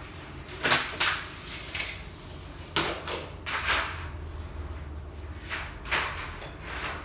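Long thin metal strips being handled: a series of sharp clatters and scrapes as they knock and slide against each other, the loudest about a second in and near three seconds.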